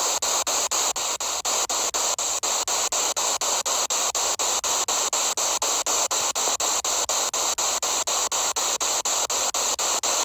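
Spirit box sweeping through radio frequencies: a steady hiss of radio static, broken by short regular dropouts about five times a second as it jumps from station to station.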